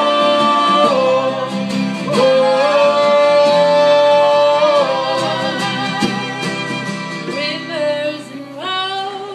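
Live country-folk band music: strummed guitar under long held sung notes, growing quieter near the end.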